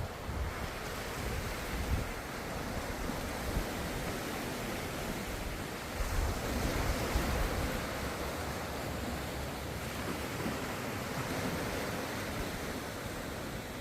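Ocean waves washing on a shore in a steady hiss of surf, with a louder surge about six seconds in.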